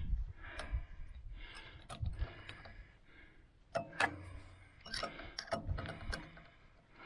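Ratcheting wrench clicking as nuts on a snowplow's electric hydraulic pump motor are tightened, with a few sharp metal clinks about four to six seconds in.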